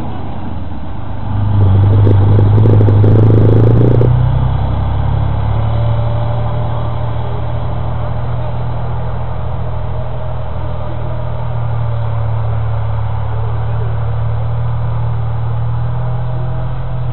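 Soviet tank's diesel engine running, revving up louder for about three seconds starting a second in, then settling back to a steady drone.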